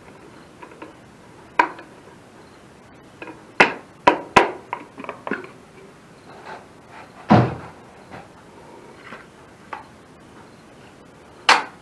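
Caulking gun being handled as the empty silicone tube is swapped for a new one: a few separate sharp clicks and clacks, the heaviest a duller knock about seven seconds in.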